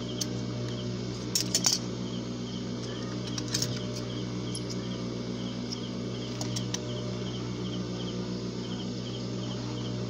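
Scissors snipping thread, a few sharp clicks about one and a half and three and a half seconds in, over a steady low electric hum and crickets chirping.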